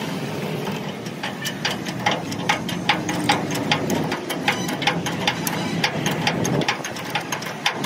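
An engine running steadily, with many sharp, irregular clicks and knocks over it, several a second.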